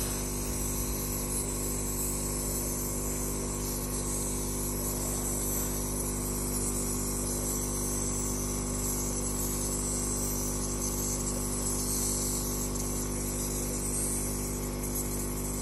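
Nebulizer air compressor running with a steady hum, with a constant hiss of air and aerosol above it.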